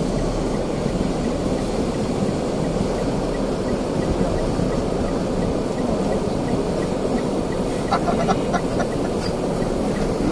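Steady rumble inside a car's cabin on a wet road: engine and tyre noise with rain on the car. About eight seconds in comes a short run of quick, sharp rattles.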